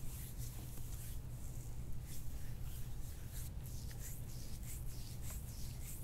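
Oiled hands rubbing and sliding over bare skin of the back and shoulders during a massage: repeated soft swishing strokes, a few a second, over a low steady hum.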